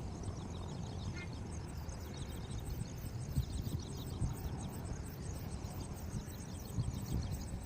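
Outdoor ambience: a fast, even, high-pitched chirping repeating about three to four times a second over a steady low rumble.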